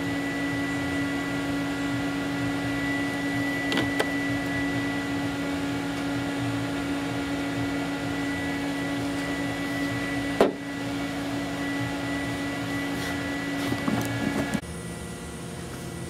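A steady mechanical hum holding a constant tone, broken by a few sharp clicks, the loudest about ten seconds in, as a small metal connector terminal and pick are handled. The hum cuts off suddenly near the end.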